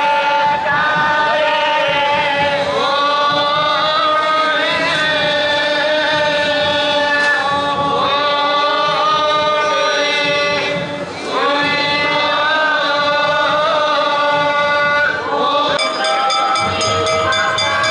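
Devotional chanting by voices in long, held notes over steady drone tones, the pitch sliding up into each new phrase every few seconds.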